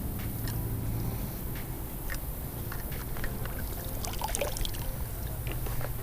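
River water splashing and trickling around legs as people wade through a shallow river, with scattered splashes that bunch up about four seconds in, over a steady low rumble.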